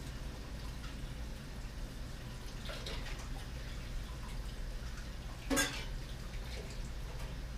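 Quiet room tone with a steady low hum, a soft knock about three seconds in, and a brief sharper knock about five and a half seconds in.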